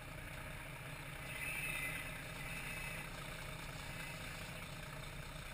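A fishing trawler's engine running steadily, a low even hum over the noise of the deck and sea.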